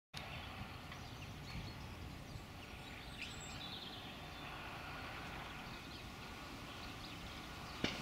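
Faint, steady low rumble of a distant John Deere tractor spreading fertiliser, with a few short bird chirps and one sharp click just before the end.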